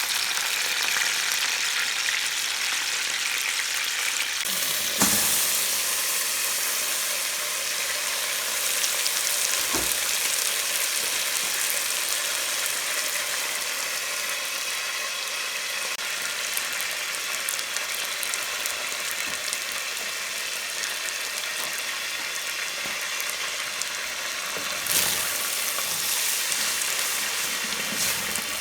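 Food frying and sizzling steadily in a hot pan, with a few short knocks: one about five seconds in, one near ten seconds and one near the end.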